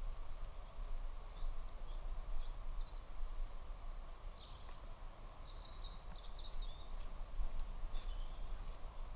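Garden ambience: a steady low rumble, with short high bird chirps scattered through it and small scuffs of weeds being pulled from soil by a gloved hand.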